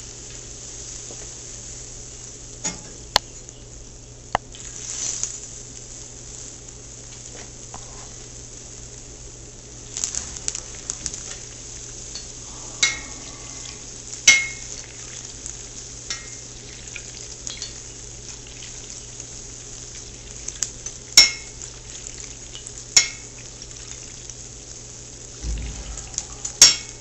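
A pancake-batter corn dog on a skewer deep-frying in hot oil: a steady sizzle with scattered sharp pops and crackles.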